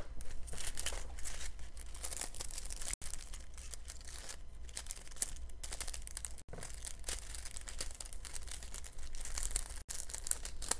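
Small plastic bags of diamond painting drills crinkling and rustling irregularly as they are handled and sorted by hand.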